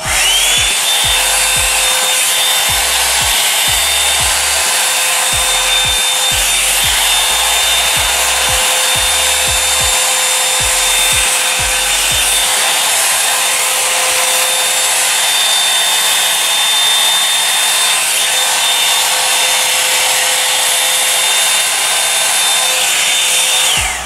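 Revlon One-Step Volumizer hot-air brush running on its high setting: a loud, steady blowing rush with a thin high whine, spinning up at the start and cutting off just before the end. Low rumbling gusts come and go through the first half.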